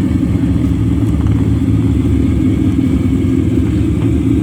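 Ferrari 250 GT California Spyder's V12 engine running loud and steady, with a deep, fast-pulsing exhaust note and no clear rise or fall in revs.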